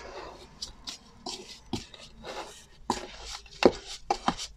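A metal spoon scraping and clinking in a plastic scoop while working a damp, gritty mix of baking soda, Epsom salts and coconut oil, with gloved hands squeezing the mix. The scraping is irregular, with several sharp knocks, the loudest about three and a half seconds in.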